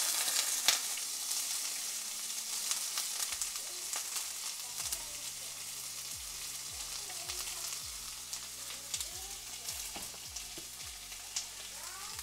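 Chopped onions sizzling in hot oil in a cooking pot, with the clicks of a spoon stirring them. The sizzle is loudest at first and settles slightly.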